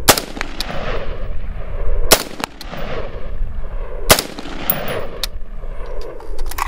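Three semi-automatic shots from a Bushmaster Assault Rifle in 5.56 mm, about two seconds apart, each followed by a long rolling echo.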